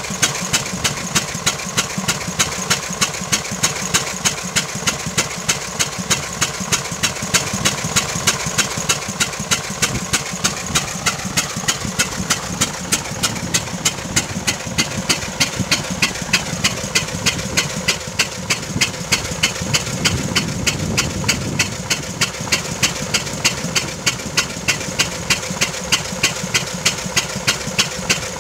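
The 16 hp gasoline engine of a 1907 Waterous horse-drawn fire engine running steadily to drive its pump. Each firing gives a sharp, even pop, about three a second.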